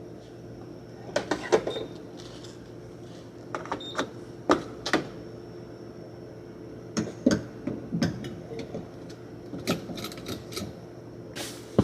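Scattered sharp clicks and knocks from handling a fuel pump at the dispenser, with two short high beeps from the pump early on, over a steady electrical hum. A louder noisy rush starts just before the end.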